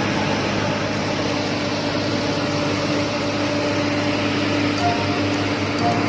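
Komatsu excavator's diesel engine running steadily, a constant drone with a low hum.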